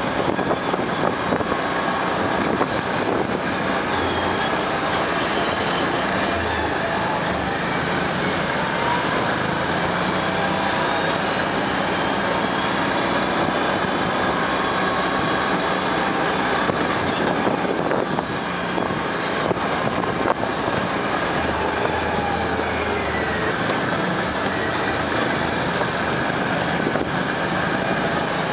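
ATV engines running at a steady trail-riding pace, with a dense rushing noise from riding over a gravel dirt track. The engine pitch rises and falls slightly now and then.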